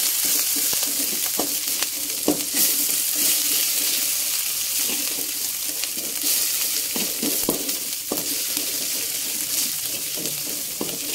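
Ground shallot, garlic and pepper paste sizzling in hot oil in a stainless steel wok as it is sautéed, with a steady hiss. A metal spatula scrapes and taps against the wok at irregular moments as it is stirred.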